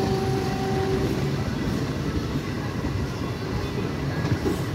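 Bandel–Naihati electric multiple-unit local train rolling past close by: a steady rumble of steel wheels on the rails, with a steady hum that dies away about a second in.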